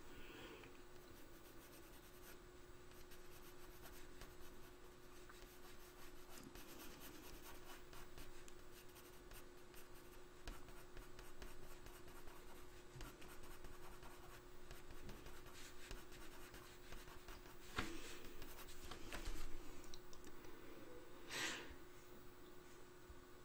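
Coloured pencil scratching lightly on drawing paper in short shading strokes, faint, over a steady low hum. A couple of light knocks come in the last few seconds.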